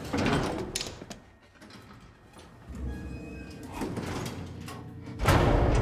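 Old elevator doors sliding shut, then a faint steady hum, and about five seconds in the elevator car starts moving with a loud low rumble.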